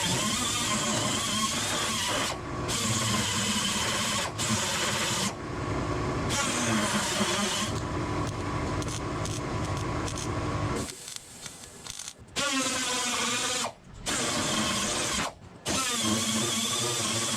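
A handheld power tool running on sheet metal, its motor pitch rising and sagging under load. It stops and restarts several times.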